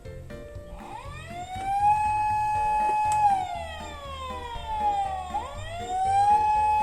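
Emergency-vehicle siren wailing: it rises to a steady pitch about a second in, holds, slides slowly down, then rises and holds again near the end. Background music with a steady beat plays underneath.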